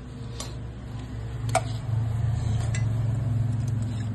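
Steady low mechanical hum that grows louder about two seconds in, with a few light metal clicks as a motorcycle cylinder head with its camshaft fitted is handled.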